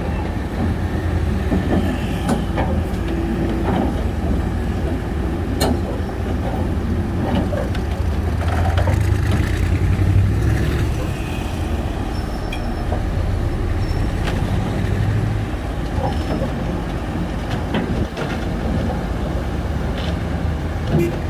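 Shantui crawler bulldozer's diesel engine running under load, with scattered metallic clanks. The engine swells louder for a few seconds about halfway through.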